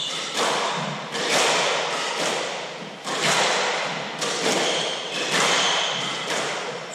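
Hardball doubles squash rally: sharp cracks of the hard ball off racquets and court walls, roughly one a second, each ringing on in the echoing court.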